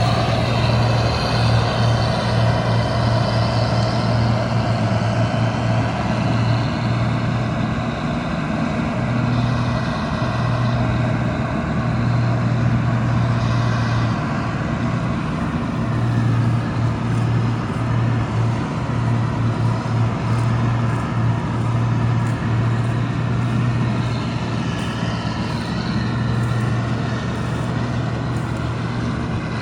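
Diesel engine of a combine harvester running steadily at working speed, a loud even low hum with machinery noise over it.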